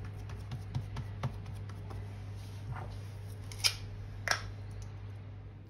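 Faint soft taps and clicks of hands pressing cookie dough flat inside a metal cake ring on a silicone-lined baking tray, over a steady low hum, with two sharper clicks a little past the middle.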